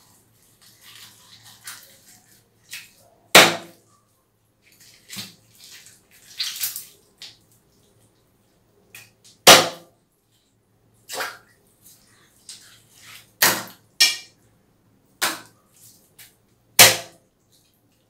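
Knife chopping milkfish on a wooden log chopping block: about seven loud, sharp chops at irregular intervals, with softer cutting and scraping of the flesh between them.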